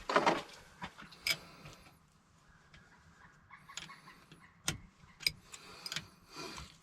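Scattered sharp metallic clicks and clinks of small metal parts and tools being handled, a few seconds apart, with one louder knock just after the start.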